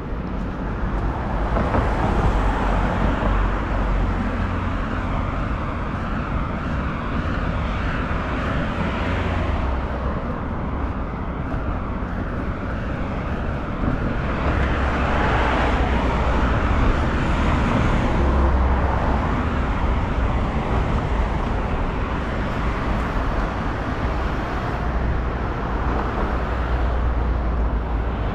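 City street traffic: a steady low rumble of road vehicles, swelling and fading several times as vehicles pass close by.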